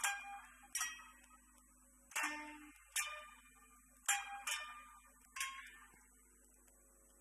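Japanese koto music: about seven single plucked notes at uneven intervals, each ringing and dying away, thinning out near the end.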